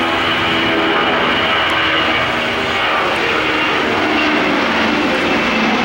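Boeing 757-222 with twin Pratt & Whitney PW2037 turbofans climbing out at takeoff power: loud, steady jet-engine noise with droning tones that slowly fall in pitch as the plane passes.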